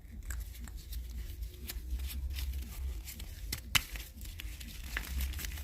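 Light clicks and rustling from hands handling a freshly opened packet of thread sealant, with one sharper click a little before four seconds in, over a low steady hum.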